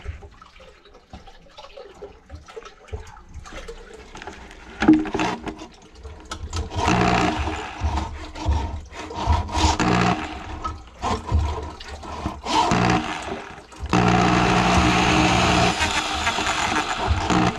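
Electric drill spinning a drum-type drain auger, its cable working through grease clogging a kitchen sink drain line. After a few seconds of handling clicks, the motor runs in short bursts, then steadily for the last few seconds, with a wet, sloshing edge.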